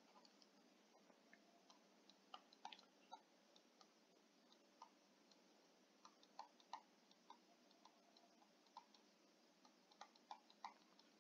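Faint, irregular ticks and clicks of a stylus tapping and sliding on a tablet screen while handwriting, coming in small clusters over a low steady room hum.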